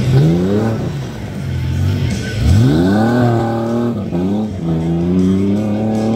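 Tuff truck's engine revving hard as the truck accelerates on the dirt track: the pitch climbs twice, once at the start and again about two and a half seconds in, then holds fairly steady.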